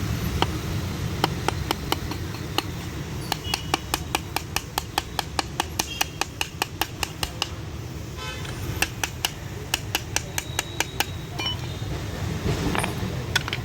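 Sharp metallic clicks or light taps from work on a car's power window regulator: a rapid even run of about five a second for several seconds, with scattered single clicks before and after, over a low steady rumble.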